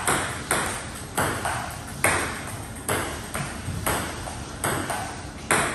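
Table tennis rally: the ball clicking off the paddles and the table about ten times, irregularly every half second to a second.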